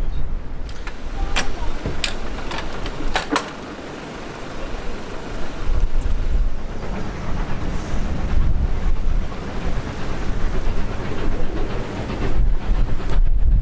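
Wind buffeting the microphone, with a few sharp metallic clanks in the first few seconds as the levers of a railway ground frame are worked. Near the end a steam locomotive is heard approaching.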